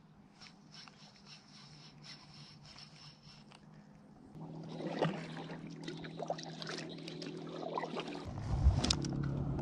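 Water dribbling with small knocks and scrapes on a fishing kayak, getting louder about four seconds in. A low rumble sets in near the end, with one sharper knock.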